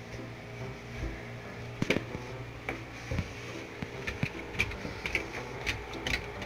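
Dog's claws clicking and paws tapping on wooden floor and stairs as it walks and climbs, in irregular light taps over a low steady hum.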